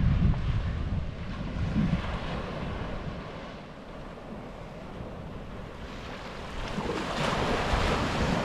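Sea waves breaking on the beach, one wave swelling up and washing in near the end. Wind buffets the microphone with a low rumble in the first couple of seconds.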